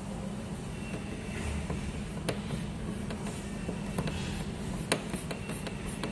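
Scattered light clicks and taps of hand tools and screws on the tennis ball machine's casing as it is screwed back together, two sharper clicks standing out, over a steady low hum.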